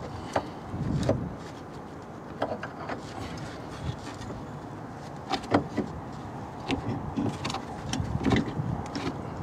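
Scattered metallic clinks and knocks from car front-suspension and hub parts being handled and fitted by hand, with gloves rustling close to the microphone. The sharpest knock comes about five and a half seconds in.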